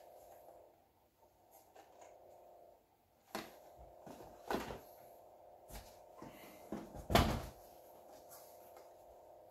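Cardboard toy boxes being handled on a wooden table: a few scattered knocks and rustles as a small box is set down and another is pulled out of a cardboard carton, the loudest knock about seven seconds in, over a faint steady hum.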